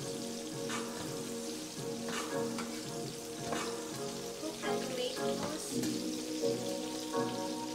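Dried round scad frying in a pan, sizzling, with a few short scrapes of a slotted spatula turning the fish. Background music plays underneath.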